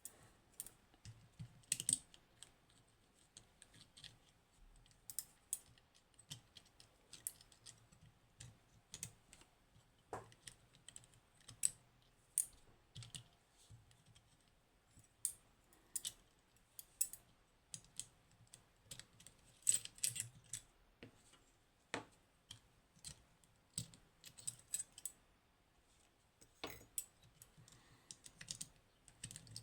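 Small metal clicks and taps at irregular intervals as the levers of a Union G110 lever lock are lifted out of the lock body and set down one by one.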